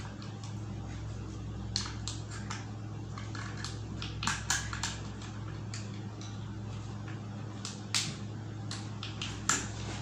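Scattered light clicks and rustles of wires and small plastic parts being handled while wiring a terminal block in a plastic electrical enclosure, over a steady low hum. The sharpest clicks come near the end.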